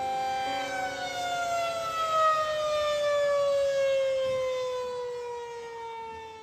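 Mechanical outdoor warning siren winding down: its chord of tones falls slowly and steadily in pitch and fades near the end.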